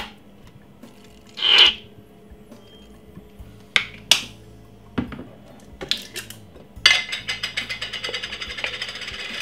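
Kitchen handling sounds around a glass bowl: a short sputtering hiss about a second and a half in as the last of the salad cream squirts from its bottle, then a few sharp clicks and knocks. In the last two and a half seconds comes a rapid run of clicking ticks, roughly ten a second.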